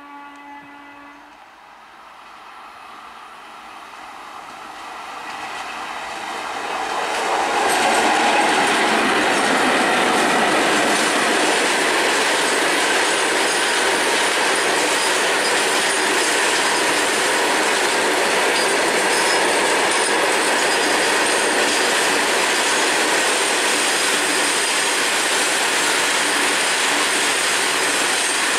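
Horn of a WAG5 electric locomotive ending about a second in, then the sound of the loaded freight train growing louder as it approaches, reaching full strength about eight seconds in. From there the loaded BOXN open wagons roll past steadily with continuous wheel and rail noise.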